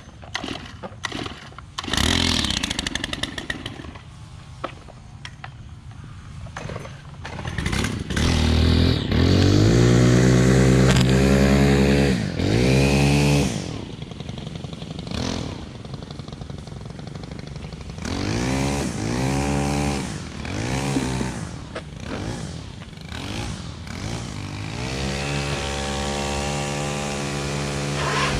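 Small gasoline lawn-equipment engines being started and revved, the pitch rising and falling in several surges, then settling to a steady run near the end. A few clicks and knocks come first.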